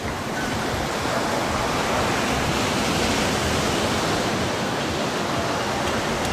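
Steady rush of ocean surf on a sandy beach.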